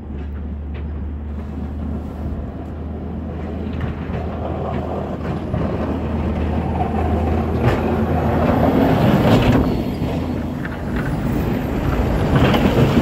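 Diesel engine of a road grader with a front plow working a snow-covered street: a steady low drone, with the engine and plowing noise growing louder as it approaches. Near the end, a Mack plow truck's blade pushing snow close by.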